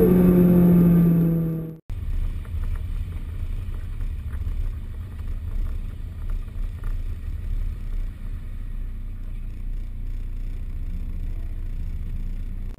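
Inside a Honda rally car, the engine runs at steady revs; the sound cuts off about two seconds in. Then comes a low, fluttering rumble from a slow-rolling car, picked up by a camera mounted low on its flank.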